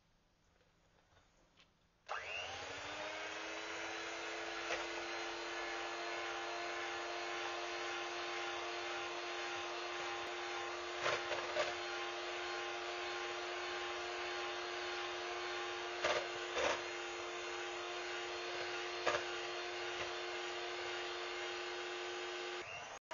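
Electric hand mixer (Tristar) switched on about two seconds in, spinning up with a brief rising whine, then running steadily with its twin beaters whipping heavy cream in a stainless steel bowl. A few sharp clicks come as the beaters knock the bowl, and the motor cuts off just before the end.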